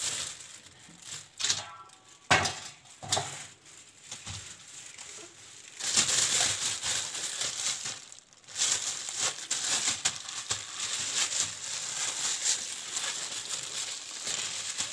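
Thin plastic freezer bags crinkling and rustling as they are handled, filled with strawberries and twisted shut. A few scattered rustles and knocks at first, then steady crinkling from about six seconds in.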